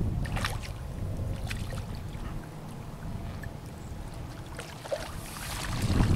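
A hooked fish splashing and thrashing at the water's surface as it is drawn into a landing net, with a few sharp splashes early on and the loudest splashing near the end as it goes into the net. Wind rumbles on the microphone underneath.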